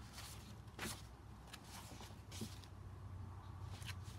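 Pages of a thin old paperback booklet being handled and turned: a handful of short, soft paper rustles over a faint steady low hum.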